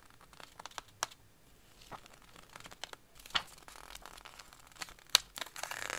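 A stack of printed scrapbooking paper sheets being flipped through by hand: crisp flicks and taps as each sheet is turned, with a soft paper-on-paper rustle over the second half. The sharpest flicks come a little after three seconds and just after five.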